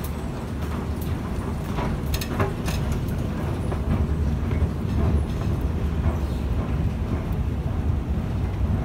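Escalator running with a steady low rumble, with a few sharp clicks about two seconds in as feet step onto the moving steps.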